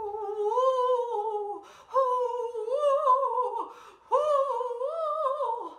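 A woman's voice imitating the wind of a snowstorm: three long, drawn-out 'hoooo woooo' calls, each wavering up and down in pitch.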